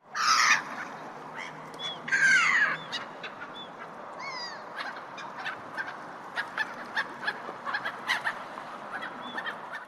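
Harbour gulls calling: two loud runs of falling calls in the first three seconds, then many short calls over a steady background hiss.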